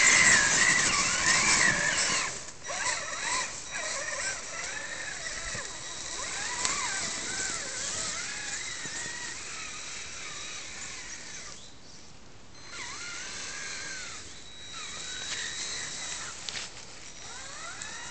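Electric motor and drivetrain whine of a Traxxas Summit RC monster truck driving over dry grass, rising and falling in pitch with the throttle. Loudest at first, it cuts out briefly twice in the second half.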